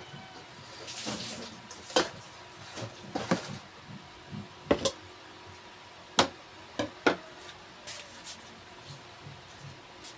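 Scattered clinks and knocks of kitchen utensils: a steel bowl, a metal pot and a knife handled on a wooden chopping board, with seven or eight separate sharp knocks.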